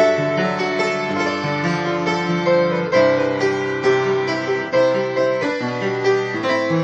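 Solo piano playing a slow power ballad, with sustained chords in the low notes under a melody line in the higher notes.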